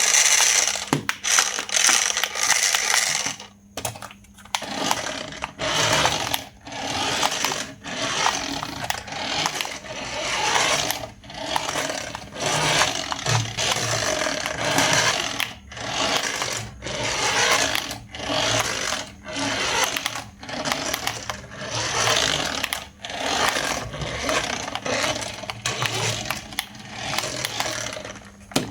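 A small motor whirring in repeated bursts of about one to two seconds, with short pauses between them.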